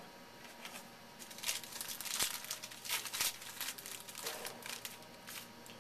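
Wrapper of a 2011 Topps Lineage baseball card pack crinkling as it is opened and handled, in irregular crackles mostly between about one and three and a half seconds in.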